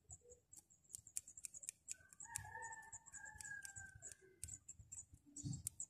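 Faint, irregular small clicks of a Shimano Sienna 2500FD spinning reel's bail wire and plastic bail spring guide being handled by fingers. About two seconds in, a rooster crows faintly for about two and a half seconds, its call falling away at the end.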